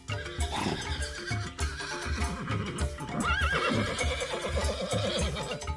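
An animal call over background music with a steady beat: about three seconds in, a cry starts high and wavers, then falls into a long trembling call that lasts about two seconds.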